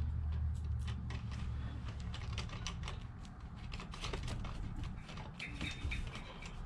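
Hand ratchet with a 6 mm hex socket on an extension, clicking in quick, uneven runs as it screws a rear-set saver bolt into the rear-set mount.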